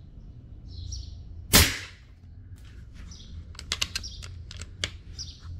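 A single shot from a Kral Puncher PCP air rifle at full power: one sharp crack about a second and a half in. About a second later comes a quick run of clicks. Birds chirp throughout.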